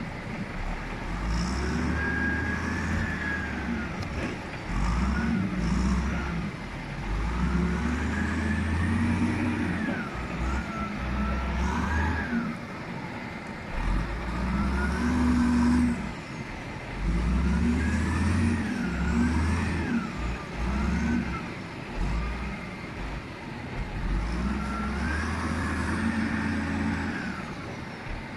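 Caterpillar 980C wheel loader working: its diesel engine revs up and drops back again and again, about every four to five seconds, each rev carrying a whine that rises and falls in pitch.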